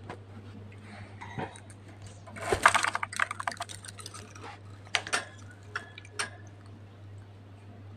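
Small sharp clicks and rattles at a budgerigar cage, with a denser rustling clatter about two and a half seconds in and a few crisp clicks near six seconds, over a steady low hum.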